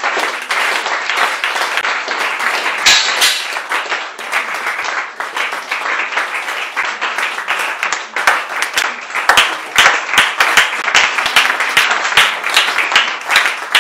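A roomful of people applauding loudly, with individual sharp claps standing out more in the second half.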